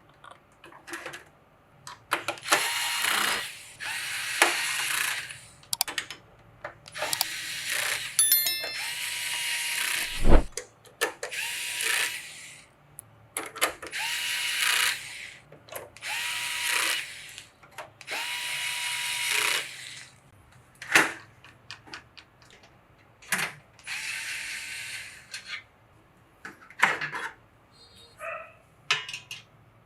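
Small electric screwdriver driving screws in short runs of a second or two, about nine times, each run rising in pitch as the motor spins up. Light clicks and handling of parts fall between the runs, with one deep knock about ten seconds in.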